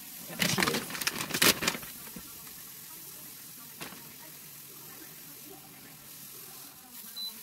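Rustling and handling noise as food and bread are laid out on an electric grill-and-griddle, loudest for a second or so early on, then a single click, and a short high electronic beep from the appliance's control panel at the very end.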